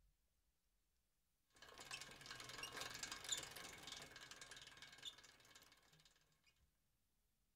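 Bicycle sound effect: a bicycle coasting by, its freewheel hub clicking rapidly as a ratchet. It fades in about a second and a half in, is loudest around three seconds, and dies away near the end.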